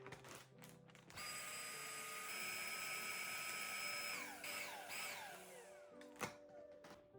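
A small electric kitchen appliance motor, such as a food chopper or blender, runs at a steady whine for about three seconds, then spins down with two brief re-pulses as it slows. A single knock comes near the end, over soft background music.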